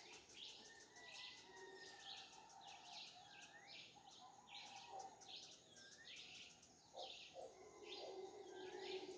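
Faint bird chirping, short high chirps repeating about twice a second over low background noise.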